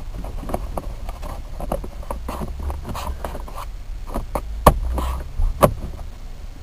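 Hard plastic clicking, knocking and scraping as a vacuum-formed plastic gauge pod is worked into place over a car's A-pillar trim, with two sharper knocks about five seconds in.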